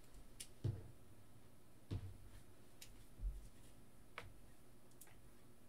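Faint, scattered clicks and light knocks of a stack of trading cards being picked up and handled in the hands.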